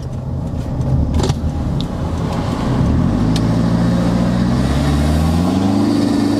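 Toyota Innova's 2KD 2.5-litre four-cylinder turbodiesel, fitted with an upgraded turbo, heard from inside the cabin under acceleration. A single click comes about a second in, and from about three seconds in the engine note rises steadily.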